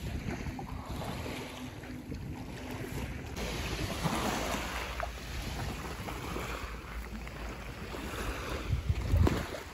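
Small sea waves washing on a beach, swelling and fading, with wind rumbling on the microphone, strongest near the end.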